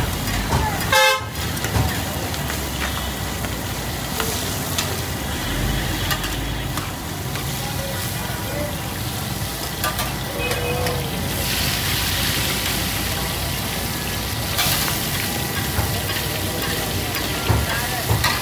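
Fish fillets sizzling as they shallow-fry in hot oil on a large flat griddle, with a metal spatula scraping and pushing them through the oil. The sizzle rises to a louder, brighter hiss for a few seconds past the middle.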